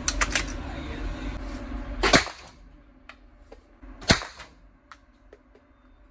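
Two gunshots, single shots about two seconds apart, with a few faint clicks and pops between them.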